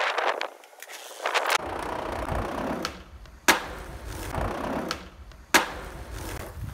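Skateboard with hard 52 mm urethane wheels rolling over concrete, the rumble starting about one and a half seconds in, with two sharp clacks about two seconds apart.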